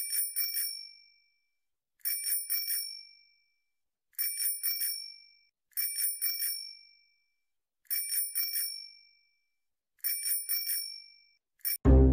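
Bicycle bell sound effect: short ring-ring trills of a few quick strikes each, repeated six times about every two seconds. A brief seventh ring comes just before loud string music starts at the very end.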